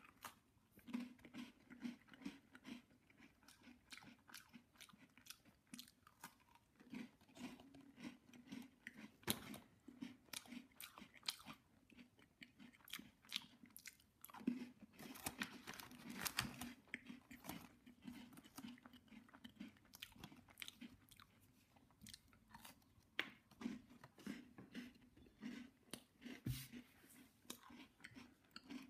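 A person biting and chewing a Leibniz Black'n White cookie, a cocoa biscuit with a white chocolate coating. Quiet, irregular crunches and chewing sounds throughout.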